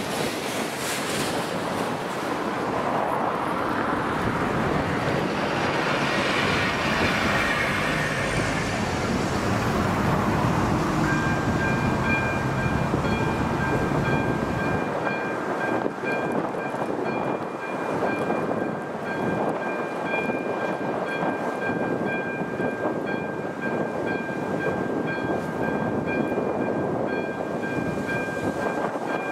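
A train passing over a level crossing, a rushing noise that swells and fades over the first dozen seconds. About eleven seconds in, the crossing's electronic warning signal starts ringing, a high, steady, repeating tone.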